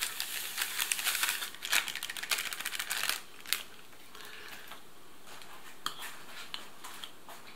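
Foil ration pouch crinkling as powdered pre-cooked maize porridge mix is poured out of it into a bowl of hot water, for about three seconds. Then it goes quieter, with a few light clicks as a spoon starts stirring the porridge.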